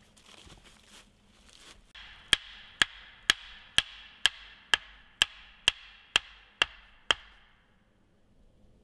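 A hatchet striking a wooden stake eleven times in a steady rhythm, about two blows a second, each a sharp knock with a brief ring, driving the stake in. Before the blows there are a few soft footsteps in dry leaves.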